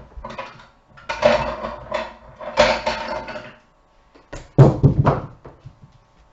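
Handling noise: several bursts of rustling and clattering, with a heavier knock about three quarters of the way through.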